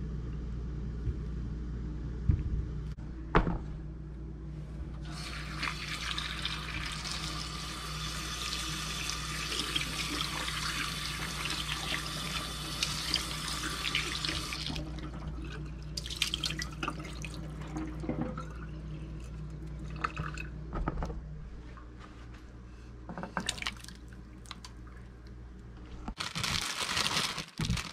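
Kitchen faucet running into a bowl of cherry tomatoes as they are rinsed by hand, for about ten seconds before it is shut off. Scattered knocks and clatter of pans follow, as the tomatoes are tipped from a pan into a pot of boiling water, over a low steady hum.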